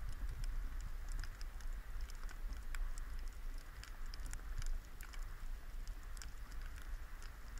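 Underwater crackle: a dense scatter of sharp, irregular clicks over a steady low rumble of water.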